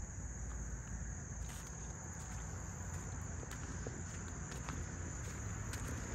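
Footsteps on a leaf-strewn dirt trail with a steady high-pitched insect drone over them, and a low rumble on the microphone. A short knock sounds right at the start.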